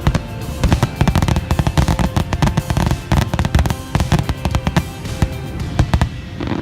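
Rapid popping and crackling bangs of fireworks, mixed with background music.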